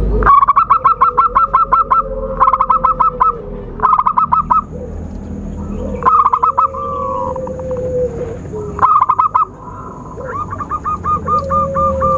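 Zebra dove (perkutut) calling: several runs of quick, evenly spaced staccato cooing notes, each run lasting about half a second to a second and a half, over a lower drawn-out note that falls slowly.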